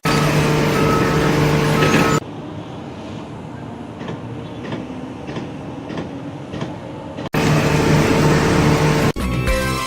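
Machinery running with a steady hum, dropping to a quieter stretch with faint knocks for several seconds before coming back. Music starts near the end.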